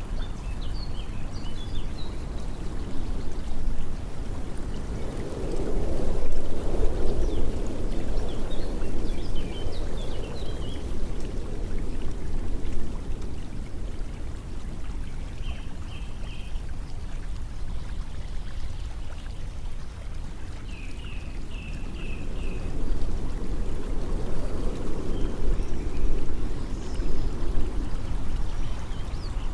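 Steady flowing water like a stream or pouring runoff, swelling louder twice, with faint short high chirps now and then.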